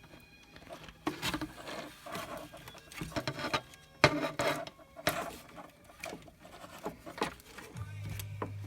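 Plastic car console trim being handled and worked into place: scattered clicks, knocks and rubbing, with one sharp click about four seconds in. A steady low hum starts near the end.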